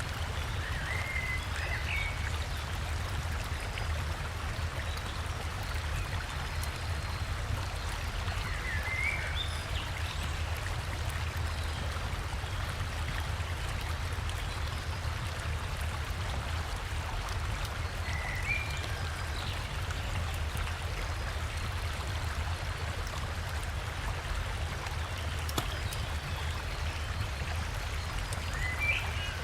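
River water flowing steadily, with a low rumble underneath. A bird gives short chirps four times, about every nine seconds.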